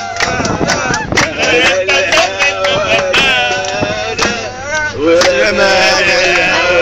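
Men singing an Arabic song together to hand drums (darbuka and riq) and hand-clapping, with sharp drum strokes and claps all the way through.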